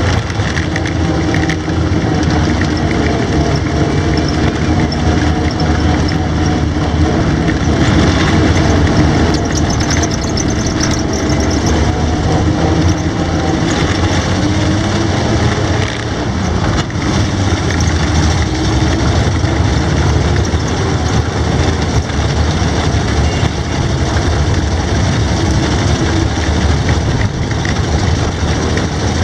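Studebaker M29C Weasel tracked carrier's six-cylinder flathead engine running as the vehicle drives along, heard from on board. The engine note is steady, drifting slightly in pitch during the first half.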